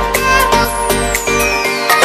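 Electronic background music with a steady beat; a high synth tone sweeps steadily downward through the second half, and the bass drops out briefly near the end.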